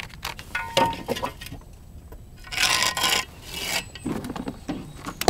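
Pencil scratching across rough exterior render while a cut line is marked, with light knocks and tool handling, and one longer scratching stroke about two and a half seconds in.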